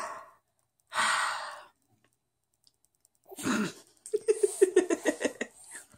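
A baby's breathy sounds: two short breathy exhales, then a brief falling vocal sound about three and a half seconds in, followed by a quick, stuttering run of high-pitched little vocal sounds.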